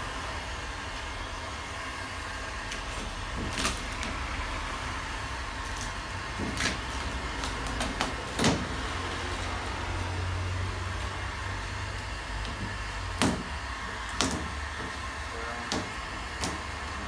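Handheld electric heat gun blowing steadily as it warms a vinyl stripe decal on a car bonnet to lift it off, with a low hum beneath. A few sharp clicks and knocks are scattered through.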